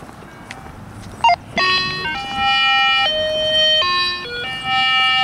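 Electronic tones from a handheld radio direction-finding receiver picking up the hidden fox transmitter's signal. A short blip comes first, then from about a second and a half in a string of steady beeps that jump up and down in pitch, each held a fraction of a second to about a second.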